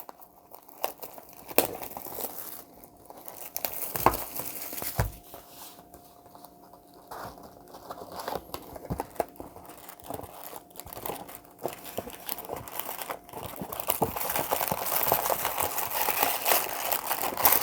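Wrapping of a sealed trading-card box being torn open: crinkling plastic and tearing in scattered rustles and clicks, growing denser and louder over the last few seconds.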